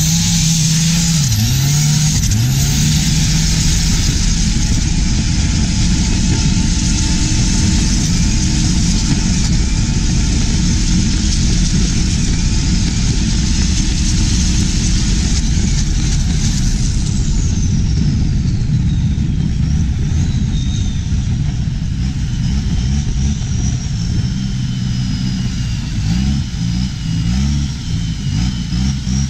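Diesel engine of a Thai long-tail boat running at high speed, loud and steady, with water rushing past the hull. The engine pitch dips briefly about a second in and rises and falls near the end as the throttle changes.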